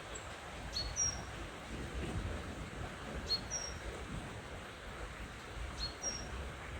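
A bird repeating a short two-note call about three times, once every two and a half seconds: a brief chirp followed by a slightly higher, longer note that falls a little in pitch. Beneath it runs a steady low background noise.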